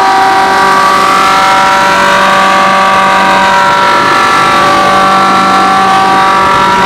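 Chopper-shredder machine's motor running steadily with a whine of several steady tones, some drifting slowly up and down in pitch.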